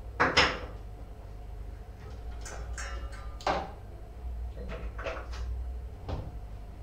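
Household utensils being handled and put away: a loud clatter just after the start, a stretch of rattling about two to three seconds in, then a sharp knock and several lighter knocks, like cupboard doors and drawers. A steady low hum runs underneath.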